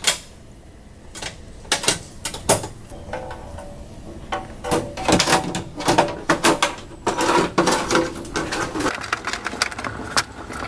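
Clicks and knocks from handling a small-form-factor PC case, then its sheet-metal cover scraping as it slides onto the chassis, with knocks as it is pushed into place about halfway through and after.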